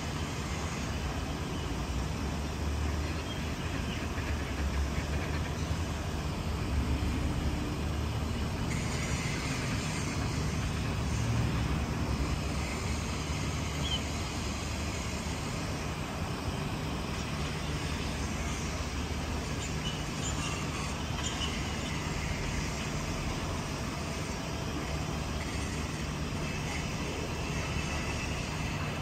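Distant traffic: a steady low rumble.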